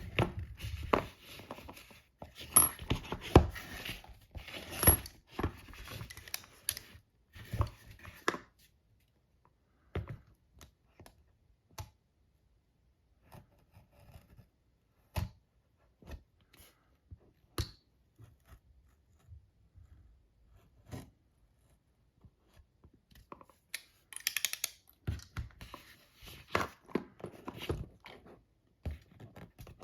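Handling noise from unboxing a universal socket adapter set: packaging rustling and scraping mixed with sharp clicks and knocks. Busy for the first several seconds, then scattered single clicks, then busy again near the end.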